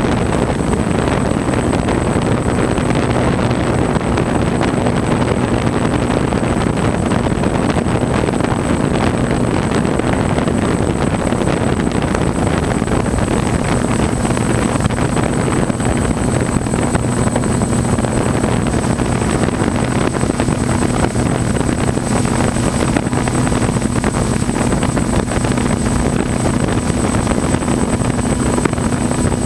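Multirotor drone's motors and propellers running steadily while hovering, heard close up from the camera mounted on it: a loud, even buzz with a steady low hum.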